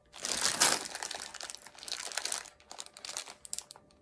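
Plastic packaging of a bag of dry pasta shells crinkling as it is handled and turned over. Loudest about half a second in, then smaller rustles.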